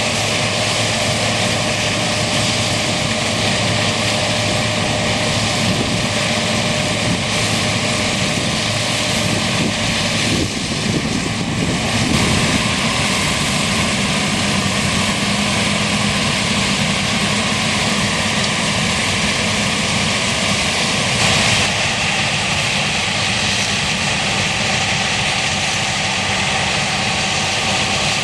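Claas Lexion Terra-Trac combine harvester running steadily under load while harvesting corn, with engine hum and a constant rushing of the threshing machinery. The sound shifts in tone about ten seconds in and again about twenty seconds in.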